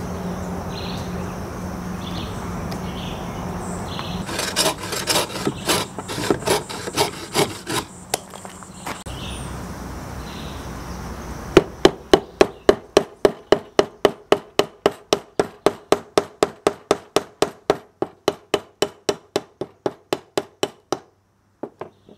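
Knife blade working green wood: scattered cuts at first, then from about twelve seconds in, quick even strokes of the knife scraping across the end of an upright stick, about three a second, which stop shortly before the end.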